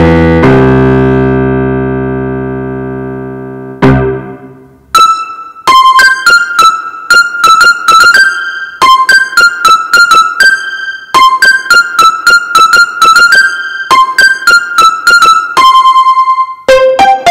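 Yamaha PSR-F51 portable keyboard playing a piano voice, recorded straight from its line output. A low chord is held and fades over about three seconds, then from about five seconds in a quick high melody of short repeated notes.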